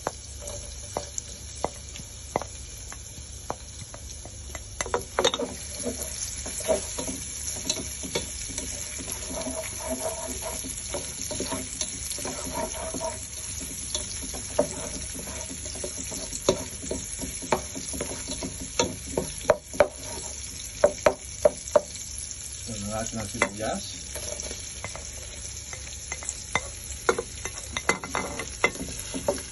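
Garlic and ginger sizzling in olive oil in a frying pan, with a steady high hiss, while a spatula stirs and scrapes them, giving many short clicks and taps against the pan.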